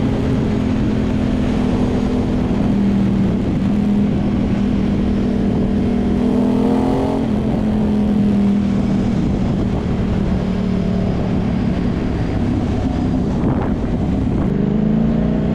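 Ducati Hypermotard V2's V-twin running through an Austin Racing dB-compliant titanium full exhaust system with Inconel headers, riding under way at steady, moderate throttle. The note climbs slowly, steps down about seven seconds in, holds level, then climbs again near the end.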